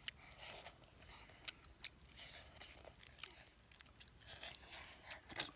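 Faint sounds of eating roast duck: meat being torn from the bird and chewed, with scattered short crunches and clicks.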